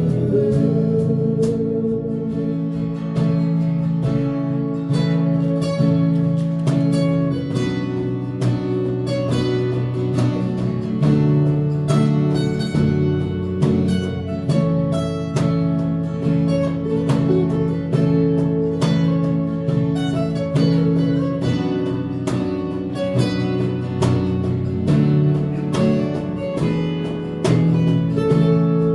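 Instrumental music with strummed acoustic guitar, no singing: an instrumental passage of a song.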